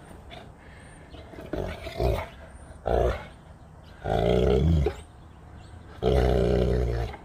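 Saint Bernard puppy growling four times with a toy bowling pin in its mouth: two short growls, then two longer ones of about a second each.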